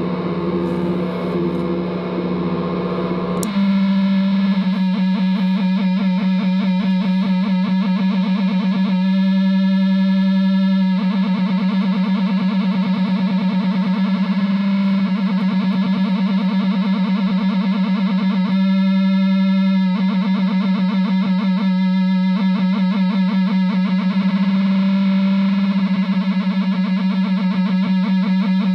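Droning, distorted noise from a chain of guitar effects pedals, a Dwarfcraft pedal into a Delta Labs digital delay: one steady low note held throughout under a fast pulsing, stuttering texture that shifts as the knobs and expression pedal are worked. About three and a half seconds in the sound abruptly switches to a brighter pulsing texture, and twice the upper tones drop away for a second or two.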